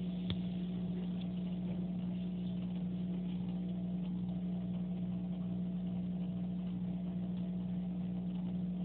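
Steady electrical hum of an aquarium pump, one unchanging low tone, with a faint click about a third of a second in.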